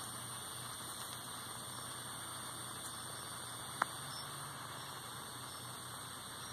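Steady background hiss with one short, sharp click about four seconds in.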